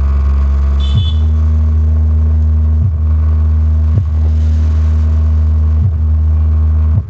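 ACR Pro 10-inch woofer in a wooden box playing a loud, deep held bass note with little sound above it. The note breaks off briefly about every one to two seconds and stops just before the end.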